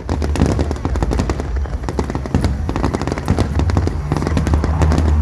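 Fireworks display going off in a rapid, unbroken string of bangs and crackles, many bursts each second, over a steady low rumble.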